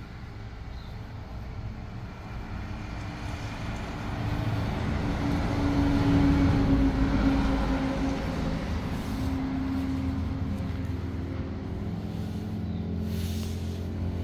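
Road traffic: a motor vehicle passing, its engine drone and road noise growing louder from about four seconds in to a peak around six to seven seconds, then settling to a steady lower drone.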